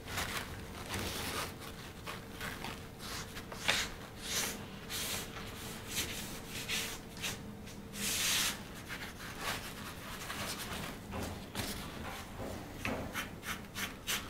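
A dye-soaked sponge is rubbed along a leather strap in short, irregular strokes, making a soft wet scrubbing hiss. The longest stroke comes about eight seconds in.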